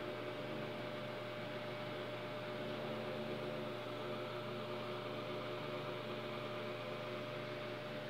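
Steady background hum and hiss, with a few faint steady tones running through it.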